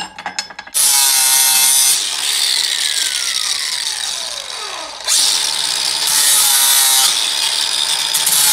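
Handheld angle grinder starting up about a second in and grinding steel, then switched off, its pitch falling steadily as the disc spins down. It starts again about five seconds in and grinds steadily.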